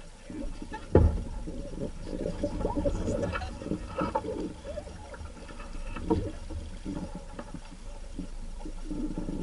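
Water splashing and lapping against a small sailing dinghy's hull as it moves, with a couple of dull knocks from the boat, one about a second in and one near six seconds.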